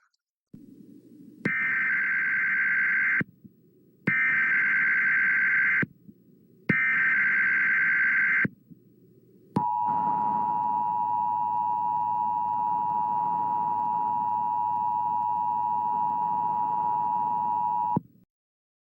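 Emergency Alert System signal: three short warbling digital SAME header bursts, then the steady two-tone EAS attention signal held for about eight seconds before it cuts off, over a low hiss.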